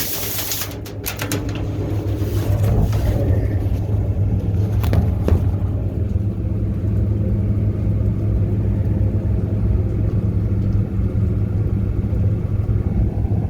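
Steady low hum of a running engine or motor. A high hissing noise cuts off within the first second, and a few short knocks and clicks follow over the next few seconds.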